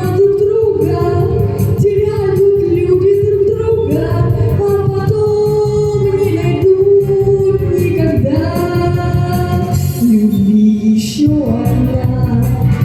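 A song with a backing track: a melody in long, held notes that glide between pitches, with no words heard, over a steady beat.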